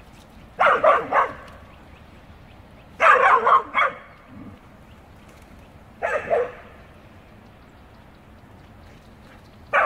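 Dogs barking during rough play: four short flurries of quick, sharp barks a few seconds apart, the last just before the end.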